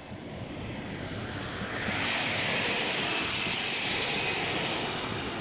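Northern Class 155 two-car diesel multiple unit passing close by: its underfloor diesel engines and wheels on the rails grow louder, jump up about two seconds in, and stay loud, with a steady whine over the running noise, as the coaches go past.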